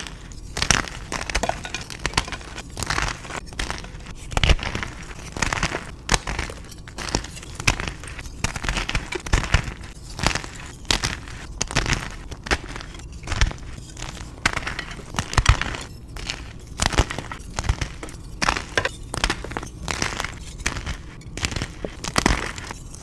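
Reformed gym chalk crushing and crumbling: a dense, irregular run of short, dry crunches and crackles.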